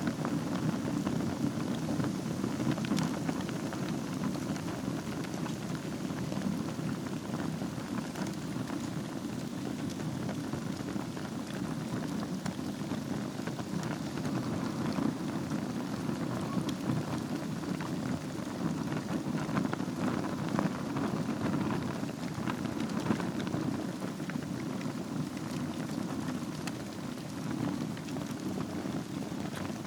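Wood fire burning in a fireplace over glowing embers: dense, steady crackling with many small pops over a low rush.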